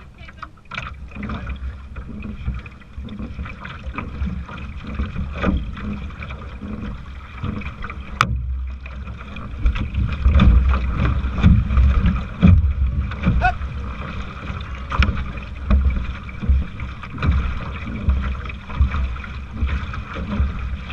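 Water sloshing and splashing against the metal hull of an aluminum canoe as it is paddled along, with wind buffeting the microphone in irregular gusts, strongest from about ten seconds in. A single sharp click comes about eight seconds in.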